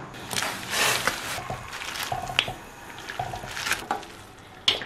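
Hand-pulled noodle dough stretched and slapped about, a run of soft wet slaps and squishes, then cooked noodles lifted dripping into a bowl with chopsticks, with a few sharp clicks.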